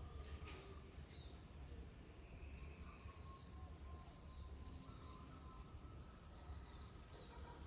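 Faint outdoor ambience: distant small birds giving scattered short high chirps over a constant low rumble. No dove cooing is heard.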